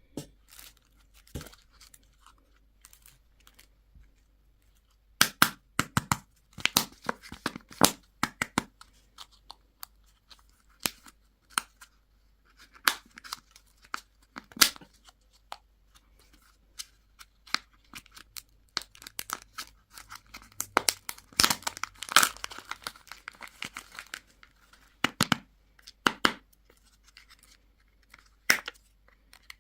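Candy wrappers being torn open and crinkled, in irregular sharp crackles that come thickest in two stretches.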